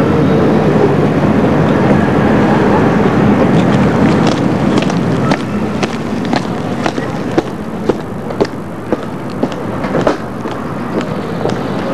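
Steady rushing noise for about the first five seconds, then military boots striking the hard parade ground at a quick-march pace, about two sharp steps a second.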